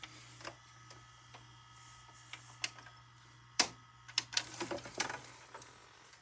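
Front-panel buttons of a Samsung DVD/VCR combo clicking under a finger, and the tape deck clicking as it stops the tape and switches into rewind, over a steady low hum. The loudest click comes a little past halfway, followed by a quick run of clicks.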